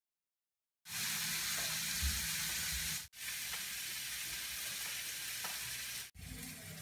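Steady sizzling of food cooking on the stove, with a faint low hum under it. It starts abruptly about a second in and is broken by two sudden cuts, about 3 and 6 seconds in, where separate clips are joined.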